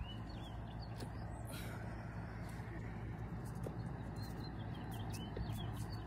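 Quiet outdoor ambience: a steady low rumble with faint bird chirps and a few light clicks and rustles close to the microphone.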